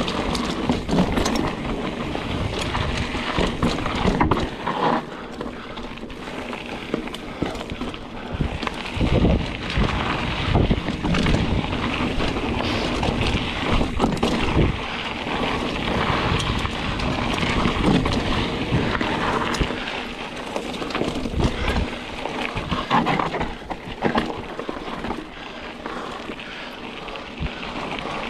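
Mountain bike descending a dirt singletrack: knobby tyres rolling over dirt and dry leaf litter, and the bike rattling and clicking over bumps, with wind buffeting the camera microphone in low rumbling gusts.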